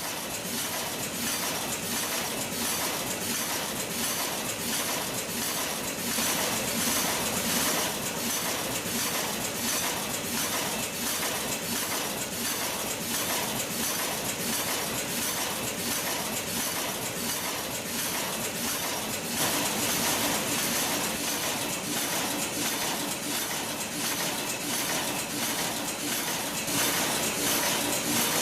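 Shinmaywa TRD510 automatic wire cutting, stripping and crimping machine running: a steady, even clatter of rapid repeated mechanical strokes as it processes wires.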